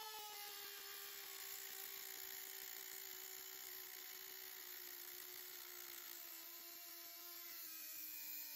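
Dremel rotary tool spinning a cutoff wheel through a thin metal shim: a steady high-pitched whine over a grinding hiss, its pitch sagging slightly as the wheel cuts.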